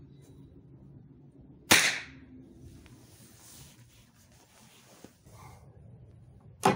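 Two sharp, short cracks about five seconds apart, one about two seconds in and one near the end: shots from a homemade single-barrel derringer chambered for 4 mm Flobert, a light report like a cap gun.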